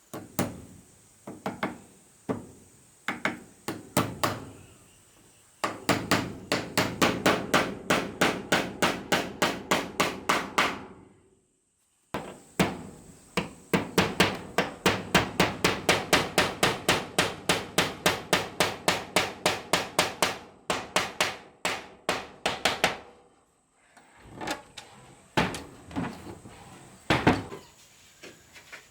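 Hammer blows on wood: a few scattered strikes, then long runs of quick, even blows at about four a second, broken by a short silent pause near the middle, and a few scattered strikes again near the end.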